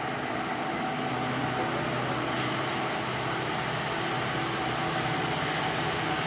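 Diesel locomotive running steadily: a constant engine drone under a broad, even hiss.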